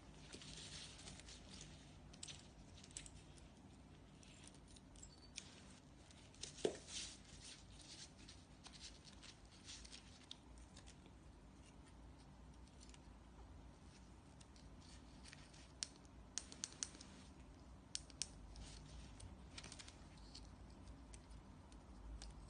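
Faint handling noise: nylon leash webbing rustling in the hands, with small clicks from fingers working the leash's plastic LED switch box. One sharper click comes about seven seconds in, and a quick run of clicks around sixteen to eighteen seconds in.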